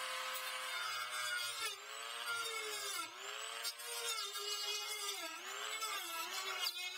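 Craftsman rotary tool cutting through a juicer's hard plastic housing. The motor's whine sags in pitch and recovers again and again as the bit bites into the plastic and is eased off.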